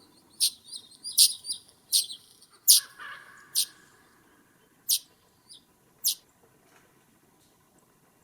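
Short, sharp, high-pitched bird calls, about a dozen quick downward chips at irregular intervals, dying away after about six seconds.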